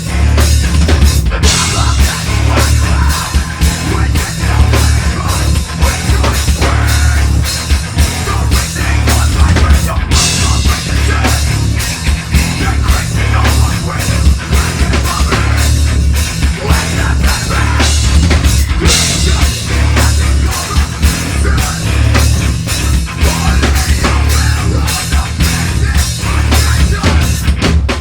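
A live heavy metal band playing loud, with a driving drum kit hitting hard and fast under the guitars and bass. The band stops abruptly near the end.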